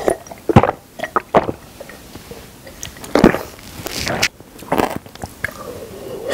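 Close-miked gulps and swallows as a person drinks from a ceramic mug, with a few sharp clicks and knocks between the swallows.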